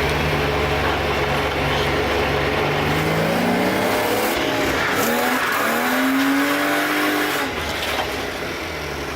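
BMW E36 engine revving hard, its pitch climbing, with tire squeal mixed in; the engine and tire noise drop away suddenly about seven and a half seconds in.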